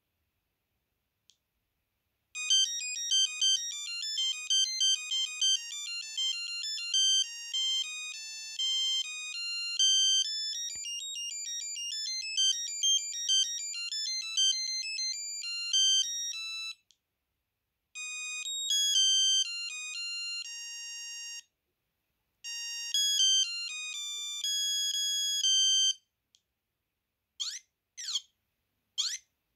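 Sony Ericsson T68i mobile phone playing its ringtones one after another. A fast melody of short, high beeping notes lasts about fourteen seconds, two shorter tunes follow after brief pauses, and a run of quick falling swoops starts near the end.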